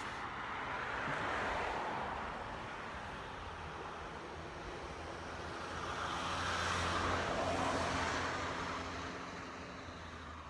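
Two cars passing by on the street one after the other, the tyre and engine noise of each swelling and fading away, the first about a second in and the second, with a low engine hum, around six to eight seconds in.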